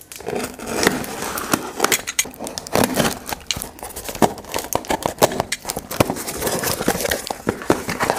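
Hands tearing open a taped cardboard parcel: packing tape ripping and cardboard flaps rustling, with irregular crackles and clicks.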